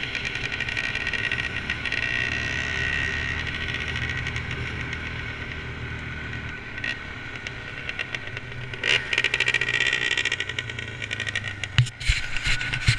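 ATV engine running while riding along a gravel dirt road, with steady road and wind noise and sharp knocks and rattles from about two-thirds of the way through.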